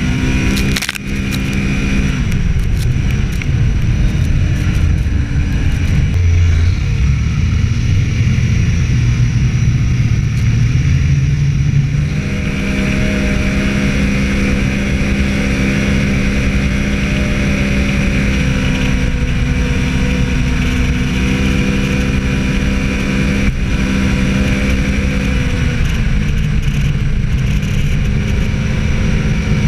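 Snowmobile engine running under throttle while riding. Its pitch climbs over about ten seconds, then holds steady at speed and eases down a little near the end.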